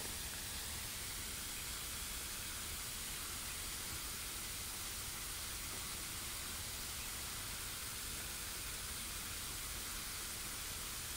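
Steady hiss of the recording's background noise, with no distinct sounds in it.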